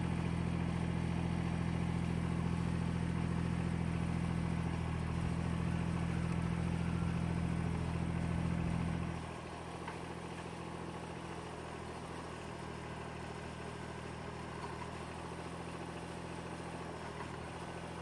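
Kubota BX25D subcompact tractor's three-cylinder diesel engine running steadily while its backhoe digs out a stump. The engine is louder for about the first nine seconds, then drops to a quieter steady note.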